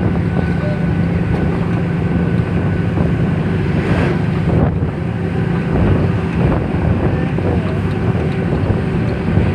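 Steady engine drone and road noise of a moving vehicle, heard from inside as it drives, with a steady low hum. A truck passing close alongside adds a brief swell of noise about four seconds in.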